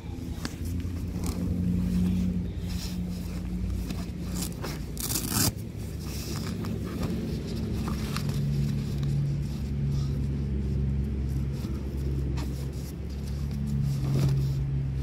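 Zipper of a tent carry bag being closed and nylon compression straps pulled tight, with scraping and rustling of the bag's fabric in short strokes. A steady low hum runs underneath and shifts pitch about eight seconds in.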